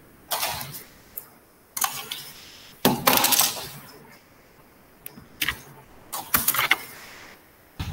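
Six short bursts of clattering, rattling clicks, the longest about three seconds in.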